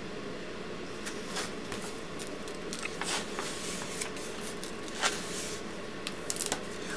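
Faint rustling and small clicks of a picture book's paper pages being handled and turned, over a steady room hiss.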